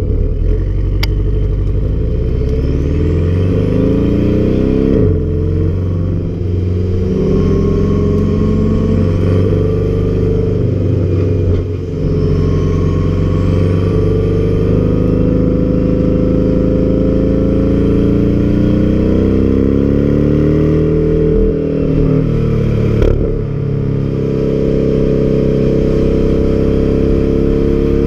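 Porsche sports car's boxer engine and exhaust at full throttle, accelerating hard through the gears. The engine note climbs steadily in pitch and falls sharply at each upshift, about four times, with a faint rising whine riding above each pull.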